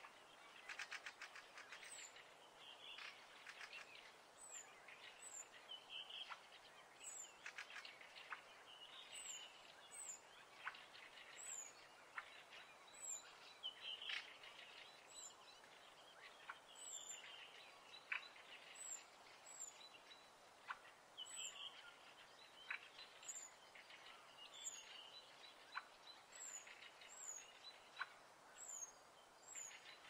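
Faint birdsong, several small birds chirping, with a very high, short, falling chirp repeating every second or two, often in pairs.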